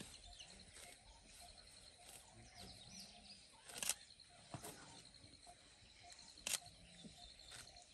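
Quiet bush ambience with faint bird calls, among them a high note repeated rapidly and steadily, and a few brief sharp clicks, the loudest about four seconds in and again near six and a half seconds.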